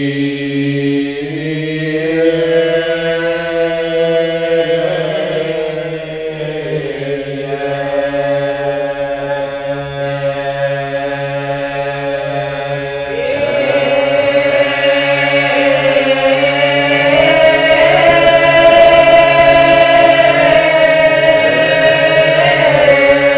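A mixed group of men's and women's voices singing together unaccompanied in long held notes over a steady low drone. About 13 seconds in, more voices join and the singing grows louder.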